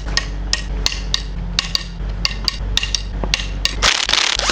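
Hand ratchet clicking steadily, about three or four clicks a second, as it turns out a 14 mm cylinder head bolt. Near the end a cordless impact wrench cuts in with a loud, rapid hammering.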